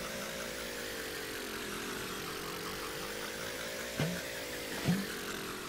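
Cartoon engine sound effect for small toy-like trucks driving: a steady hum whose pitch slowly rises and falls, with two short chirps about four and five seconds in.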